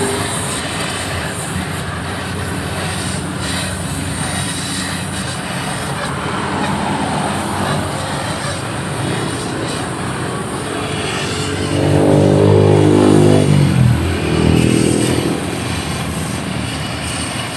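Steady road traffic noise. About two-thirds of the way through, a motor vehicle's engine passes close and grows louder, its pitch falling as it goes by, with a shorter second pass just after.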